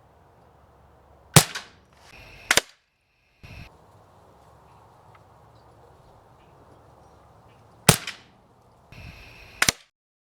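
Two sharp shots from a Barra 1866 multi-pump air rifle, about six and a half seconds apart. Each is followed about a second later by a brief rustle and a lighter sharp click.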